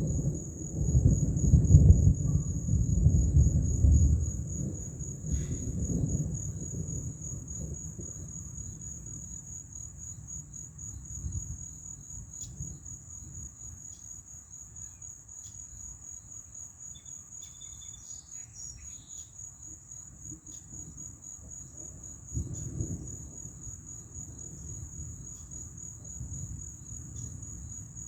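Thunder rumbling and dying away over the first several seconds, with a second, fainter roll of thunder about two-thirds of the way through. Under it, a steady, high, evenly pulsing chorus of night insects.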